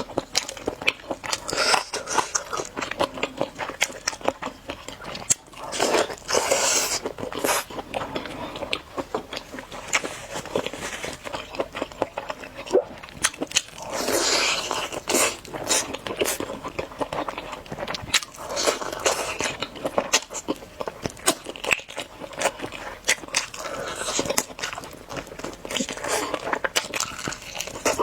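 Close-up eating sounds: biting into and chewing Orleans-style roast chicken drumsticks, with many small irregular crunches and mouth clicks.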